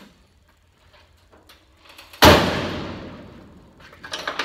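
Early Ford Bronco steel door, hung on heavy-duty lift-off hinges, swung shut and slammed once about two seconds in, with a long ringing decay. A few light clicks and knocks of handling come before and after.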